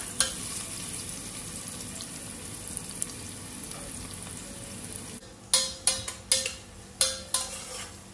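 Sliced onions sizzling in hot oil in a stainless steel pressure cooker, a steady hiss. About five seconds in, the hiss drops away and a run of sharp metal clinks on a steel pot follows, roughly three a second.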